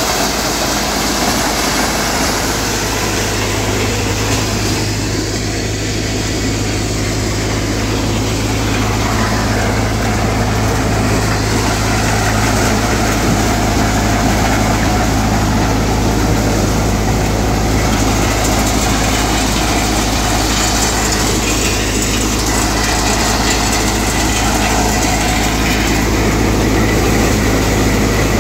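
New Kamdhenu multicrop thresher shelling maize, running steadily under power from its tractor: a loud, even mechanical drone with a steady low hum that sets in about two seconds in.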